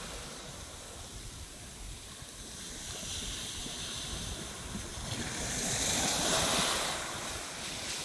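Sea waves washing in over water covered with floating pumice, with wind on the microphone; the wash swells louder about five seconds in and eases off near the end.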